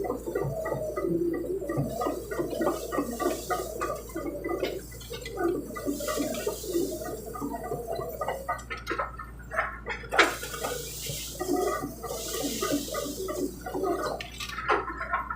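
Excavator working while clearing land: its engine runs with a steady low hum under an irregular, churning rumble, broken by a few sharp cracks about two-thirds of the way in and near the end.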